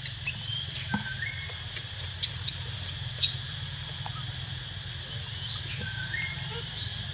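Dry leaf litter crackling in a few sharp snaps during the first three seconds as a young macaque roots through it, over a steady high outdoor hiss. Faint short chirps twice.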